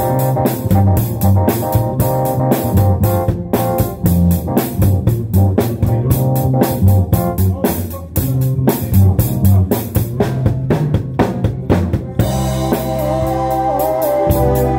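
Live band playing at rehearsal, with a drum kit close by keeping a steady beat over electric guitars and bass. About twelve seconds in the drumming thins out and held keyboard chords with a moving melody come forward.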